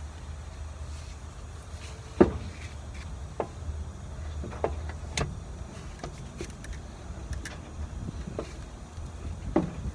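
Scattered sharp metal clicks and knocks, about eight of them with the loudest about two seconds in, from hands and tools working at the bolts around a Volvo semi truck's starter, over a steady low rumble.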